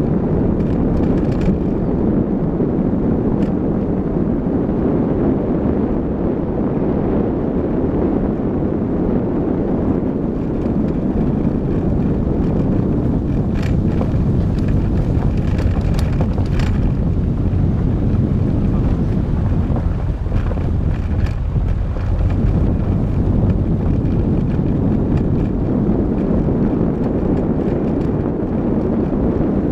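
Car driving fast along a gravel road: steady engine and tyre rumble under heavy wind noise on the microphone, with a few sharp ticks, several of them between about thirteen and seventeen seconds in.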